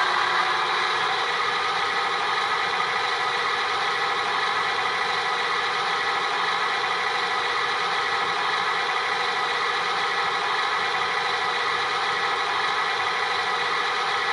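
Sound decoder in a Rapido SW1200RS model locomotive playing its diesel prime mover sound, running steadily at full throttle (notch 8), heard through the model's small speaker.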